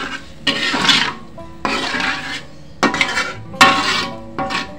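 Metal spatula scraping and stirring in a metal wok, about five strokes, each under a second long, as a wet spice paste is stirred.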